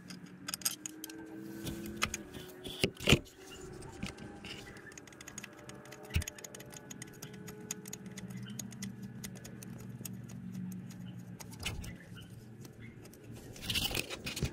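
Small metal clinks and clicks of bolts and hand tools while a replacement electric water pump is fitted and bolted up in an engine bay, with one louder knock about three seconds in, over a faint steady hum.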